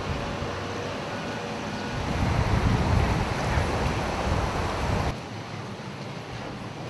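Rushing noise of floodwater outdoors with wind buffeting the microphone. It swells in the middle and drops off abruptly a little after five seconds in.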